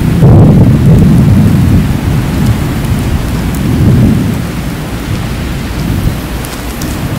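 Rolling thunder: a loud low rumble that starts suddenly, swells again about four seconds in and then dies away, over a steady hiss of rain.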